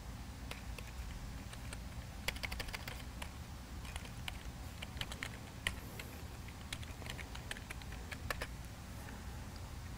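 Keys being typed on a computer keyboard as a network password is entered: irregular clusters of light clicks, starting about half a second in and stopping near the end.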